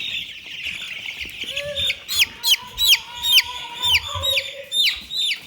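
Young Cornish-cross meat chicks peeping in a crowd. From about two seconds in, one chick close by gives loud, repeated falling peeps, about three a second.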